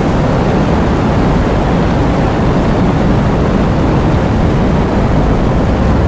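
Heavy rain and wind: a steady, loud, deep rushing noise that holds constant throughout.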